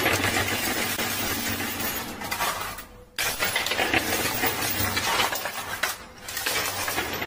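Coins and plastic poker chips clinking and clattering in a coin pusher machine, a dense, continuous rattle. It fades out briefly about three seconds in, then comes back suddenly.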